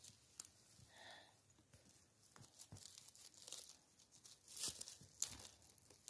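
Faint rustling and crackling of leaf litter and twigs on a forest floor, with two louder crackles near the end.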